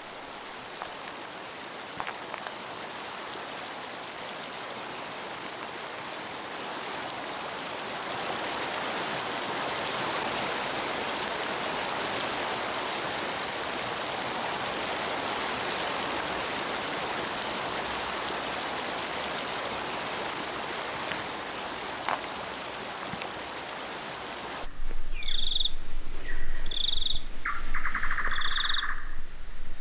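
Steady rush of water from a small waterfall and stream, swelling a little in the middle. Near the end it gives way to a night insect chorus: a continuous high trill, a short chirp about every second and a half, and a brief pulsing call.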